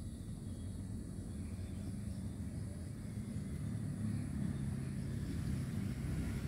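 Low rumble of a motor vehicle's engine off-screen, growing steadily louder toward the end as it approaches.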